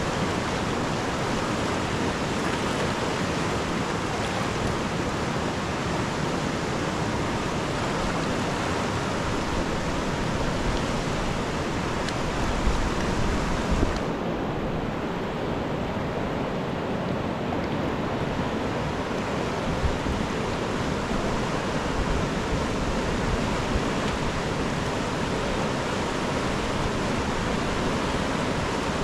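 Steady rushing of a large, fast-flowing river. A little past halfway the sound suddenly turns duller, losing its hiss.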